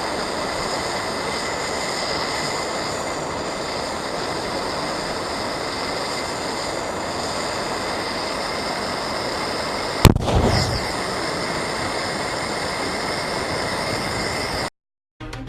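Gas welding torch hissing steadily while heating an aerosol deodorant can, then one sharp bang about ten seconds in as the pressurised can bursts. The hissing carries on after the bang and cuts off abruptly near the end.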